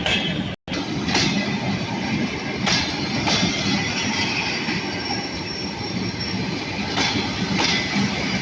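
Train wheels rolling on the rails, with a steady rumble and paired clacks about half a second apart as the wheels pass over the rail joints. The sound cuts out for an instant just after the start.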